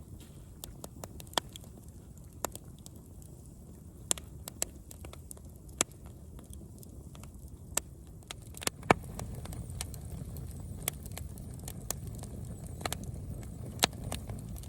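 Campfire crackling, with irregular sharp pops over a steady low rumble of the burning fire; the loudest pop comes about nine seconds in.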